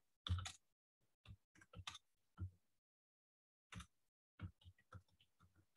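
Faint keystrokes on a computer keyboard: about a dozen short, irregular clicks with a pause of about a second midway, the first one the loudest.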